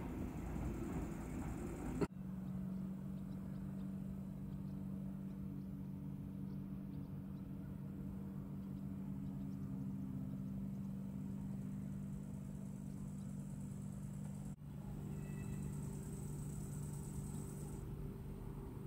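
Steady low mechanical hum at an even pitch, like an idling engine. It breaks off abruptly and resumes twice, about two seconds in and again after about fourteen seconds.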